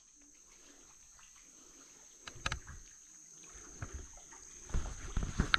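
Water sloshing and splashing around a small paddled boat, with a few sharp knocks. It is faint at first and grows louder from about halfway in.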